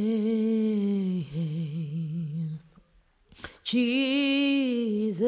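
A solo voice singing a worship song unaccompanied. It holds the word "name" in long notes with wide vibrato, goes quiet for about a second in the middle, then sings another long, wavering held note.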